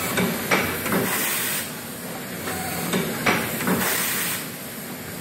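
Rotary automatic pouch filling machine for marinated meat running: mechanical clacks and clicks, with a burst of compressed-air hiss about every two and a half seconds.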